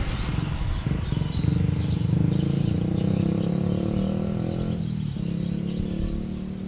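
Six-cylinder Volvo diesel engine running steadily after starting with only two of its six glow plugs working. Birds chirp over it.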